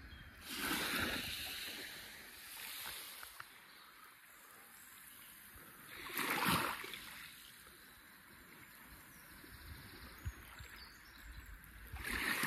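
Small waves lapping onto a pebbly sand beach in a calm cove, each wash swelling and fading over about a second. There are three of them, about six seconds apart.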